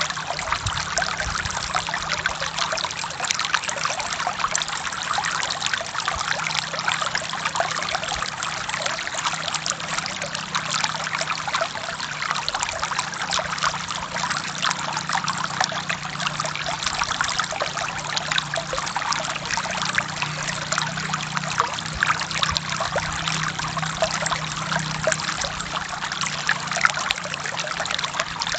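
Forest stream flowing over rocks: a steady, dense splashing and trickling of running water.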